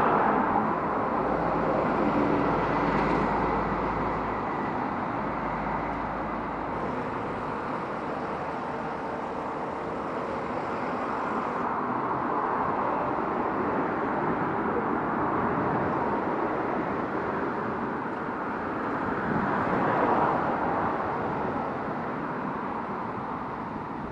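Street traffic passing: cars swell past at the start and again about twenty seconds in over a steady rushing background, with a low engine hum for the first few seconds.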